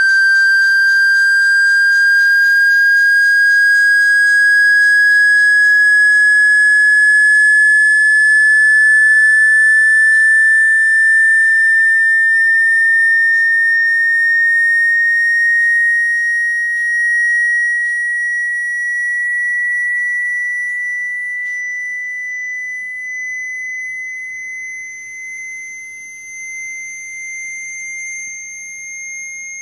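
Electronically generated sine-wave tone of the kind played to shake water out of a phone speaker: a single high, whistle-like pitch rising slowly and steadily, getting somewhat quieter over the last third.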